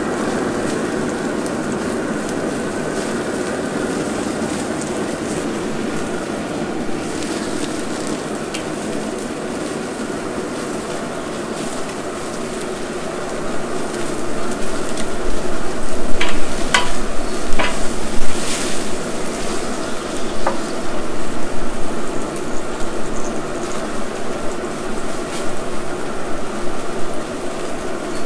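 Grease fire in a Recteq RT-B380 Bullseye pellet grill: burning fat crackling and sizzling as open flames lick over the steaks. It grows louder about halfway through, with a few sharp clicks.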